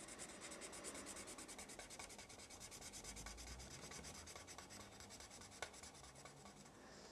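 Felt-tip marker colouring in on paper: a faint scratchy rubbing of quick back-and-forth strokes.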